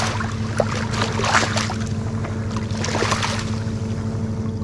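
Redfish thrashing in a rubber landing net at the water's surface, a run of short splashes in the first three seconds that then die down. A steady motor hum runs underneath.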